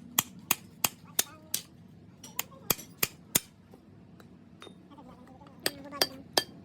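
Hammer striking metal in quick, even blows, about three a second, in three short runs with pauses between, as a truck's brake shoe linings are worked on.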